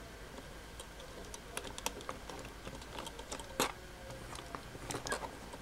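Scattered light clicks and taps of hard plastic as 1/144 Zaku model kits are handled and their leg joints bent, with one sharper click about three and a half seconds in.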